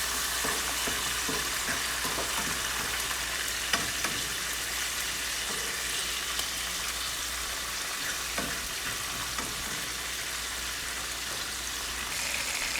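Steak frying in a pan with onions and green peppers: a steady sizzling hiss, with a couple of sharp ticks about four seconds in.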